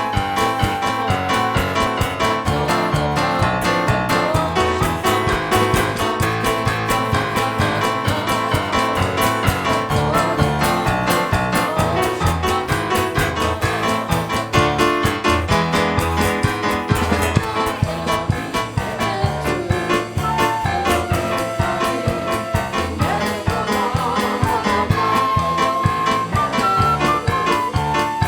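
Upbeat instrumental music with a steady beat and a melody line, without singing.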